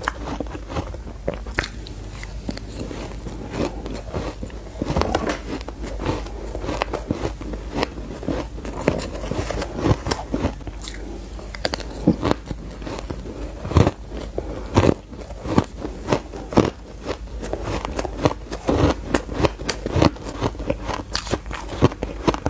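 Shaved ice being bitten and chewed close to a microphone: a rapid, continuous run of crisp crunches, with a few louder bites around the middle and near the end.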